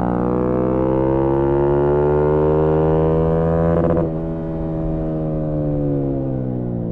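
Yamaha MT-125's single-cylinder four-stroke engine through a GPR aftermarket exhaust, heard onboard. The revs climb under throttle for about three seconds and hold. About four seconds in the throttle closes: the note drops in volume and the revs fall away on the overrun.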